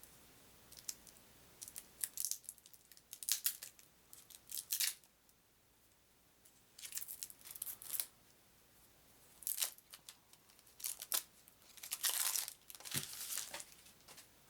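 The wrapping around a deck of game cards being torn open and crinkled, in scattered bursts with short pauses.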